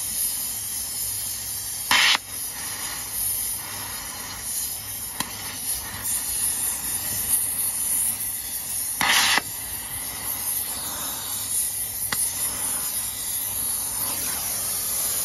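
Oxy-fuel cutting torch flame hissing steadily against a truck's wheel nuts, heating them to free them. Two brief louder bursts come about two seconds in and just after nine seconds, and the hiss cuts off suddenly at the end as the torch is shut off.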